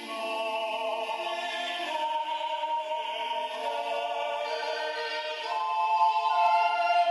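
Slow background music in a choral, operatic style: long held sung notes that shift pitch every couple of seconds, growing louder near the end.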